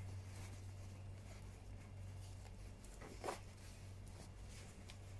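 Faint rustling of trouser fabric being folded and tucked in by hand, with one short louder rustle about three seconds in, over a steady low hum.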